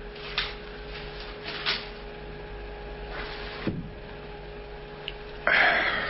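Old-time radio drama sound effects: a couple of sharp knocks, a scraping rustle, then a louder rustle near the end, over a faint steady hum from the old recording.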